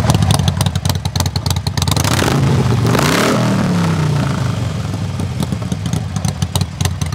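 Harley-Davidson Sportster's V-twin engine running loudly just after start-up and being revved, with one bigger rev rising and falling about three seconds in.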